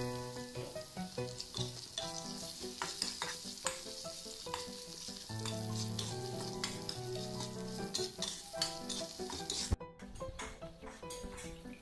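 Pork slices, garlic and dried chillies sizzling in a hot wok, stirred and scraped with a metal wok spatula, with background music underneath. The sizzling cuts off suddenly near the end.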